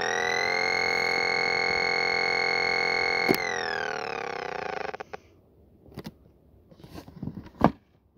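Electronic noise synthesizer box with toggle switches, playing a dense buzzy drone that glides up in pitch and holds. After a click it slides back down and cuts off about five seconds in. A few handling clicks follow, with a sharp knock near the end.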